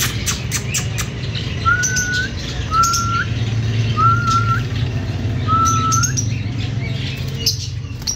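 Lovebirds chirping in quick sharp bursts, thickest in the first second. A clear whistled note that slurs upward at its end repeats four times, about a second apart, over a low steady hum.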